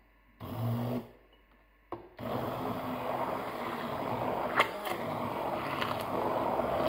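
Immersion hand blender whipping cheesecake filling of ricotta, eggs, sugar and starch in a glass bowl: a short burst about half a second in, then running steadily from about two seconds in. Two sharp clicks come in the middle of the run.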